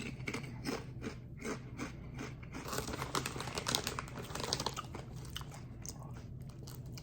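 Someone biting into and chewing thick, hard kettle-cooked tortilla chips with the mouth close to the microphone: a run of crisp, crackly crunches, about three or four a second.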